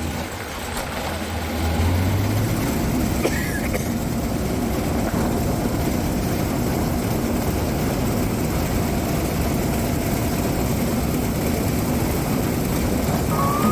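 A heavy engine running steadily with a rough, noisy rumble. A low steady hum drops out about two seconds in as the noise gets louder.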